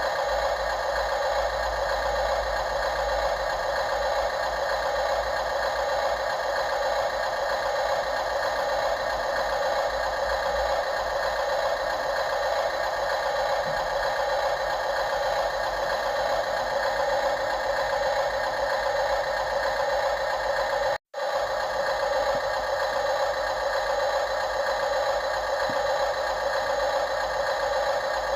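Radio-controlled construction machinery running: a steady, unchanging engine-like drone with some rattle. It cuts out for a split second about three quarters of the way through.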